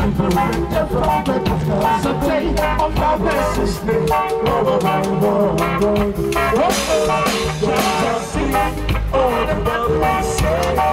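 Live band playing a steady dance groove on electric bass guitar, electric guitar and drum kit.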